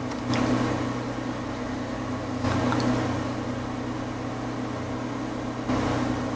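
Steady low hum, broken three times, near the start, about two and a half seconds in and near the end, by short bursts of handling noise with small metallic clicks as an Allen wrench and a hand wheel are worked on a mill's lead screw.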